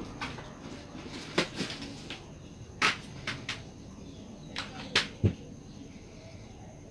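Scattered handling sounds of hand crafting: short clicks and rustles as a fabric bow and plastic headband are worked and a hot glue gun is used. A duller knock about five seconds in fits the glue gun being set down on the table.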